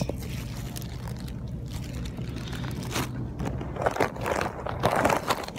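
Rustling and scraping handling noise right at the microphone, getting busier over the last couple of seconds, over a steady low hum.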